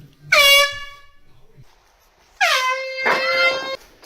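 Air horn blasting twice: a short blast about a third of a second in, then a longer one of over a second from about two and a half seconds in, each dipping slightly in pitch as it starts.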